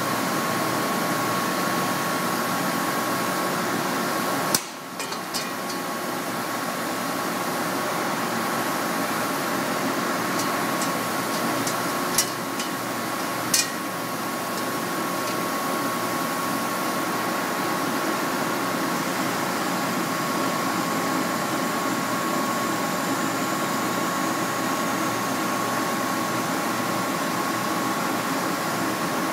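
Steady hum of a running press brake, with a thin steady high tone. A few sharp metallic clicks sound as the sheet and tooling are handled: one about five seconds in and two between twelve and fourteen seconds.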